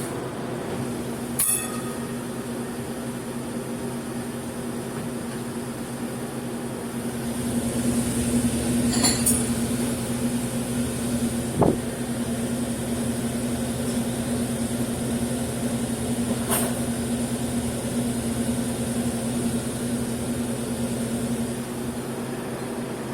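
Steady mechanical hum of running machinery that gets louder about a third of the way in, with a few light clicks and clinks from handling parts.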